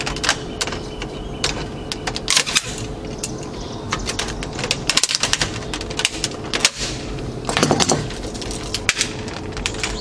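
White plastic frame of a computer DVD drive being pried and broken apart by hand and with pliers: an irregular run of sharp plastic cracks, snaps and rattles, with a longer crunching stretch about three-quarters of the way through.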